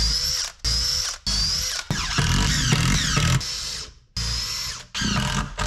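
Cordless drill driving screws into wood in several short bursts of motor whine. On the longest run, near the middle, the whine sinks in pitch as the drill bogs under load.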